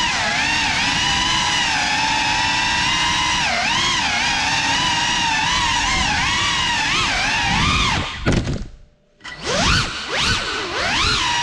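GEPRC Cinelog 35 6S cinewhoop's brushless motors and ducted propellers whining, the pitch rising and falling with the throttle. About eight seconds in the throttle is chopped and the whine cuts out for about a second, then comes back in quick rising surges as it is punched again.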